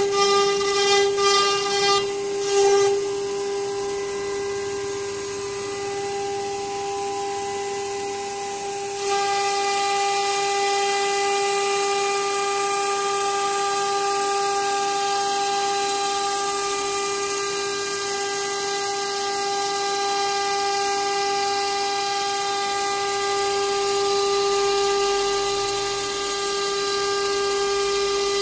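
CNC router spindle running at a steady high pitch while its V-bit carves grooves into a wooden door panel. The whine wavers in the first few seconds, and about nine seconds in it gets louder with more hiss of cutting.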